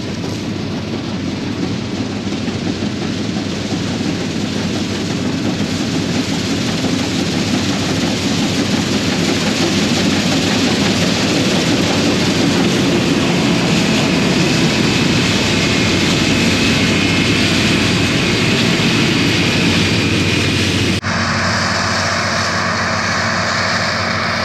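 New Holland TX62 combine harvester running steadily while cutting beans, a loud continuous mechanical din with a low hum under it. The sound changes abruptly about three-quarters of the way through.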